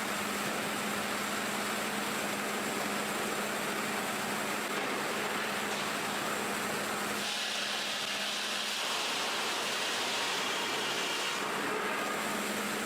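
Sawmill machinery running: a steady hissing mechanical noise over a constant low hum. The noise changes character about seven seconds in and again near the end.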